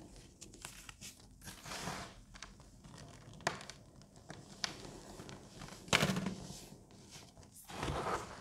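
Hands crushing, scooping and sifting dry baking soda powder and crumbles: soft crunching and crumbling in several bursts, with a few sharp snaps of breaking lumps, the loudest about six seconds in.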